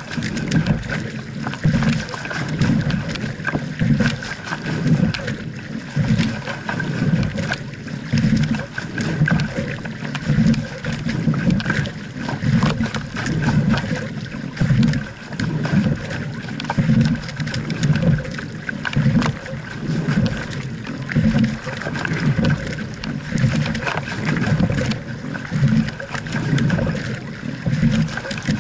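Double sculling shell under way. Water rushes along the hull and the oars splash in a rhythm of about one stroke every two seconds, with sharp clicks from the oars and riggers through each stroke.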